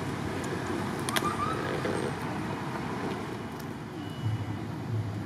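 Steady outdoor background noise, like distant traffic, with a brief faint chirp about a second in.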